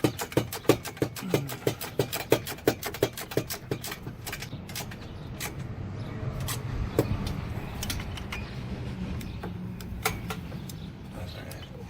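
Hand ratchet clicking steadily, about four clicks a second, while driving in a header bolt. It stops about four seconds in, leaving scattered clicks and knocks over a low hum.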